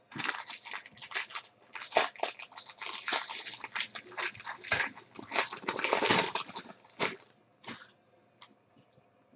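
Foil wrapper of a Bowman Draft baseball card pack crinkling and tearing as it is opened by hand: a dense crackle for about seven seconds. Then a few soft clicks as the stack of cards is handled.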